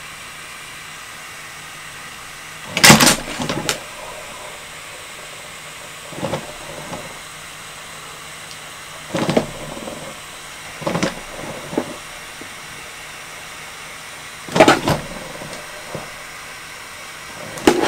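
DJI RoboMaster S1 driving on its mecanum wheels in about six short bursts of motor and wheel noise, each lasting under a second. These are the chassis drive motors responding again now that the CAN-bus connection fault is repaired.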